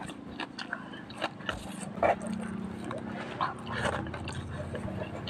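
Close-up eating sounds: a person chewing and biting, with irregular wet clicks and crunches from the mouth, over a faint steady low hum.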